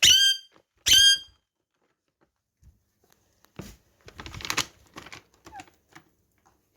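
Pet parakeet giving two loud, short squawks about a second apart, followed a couple of seconds later by light scratching and clicking.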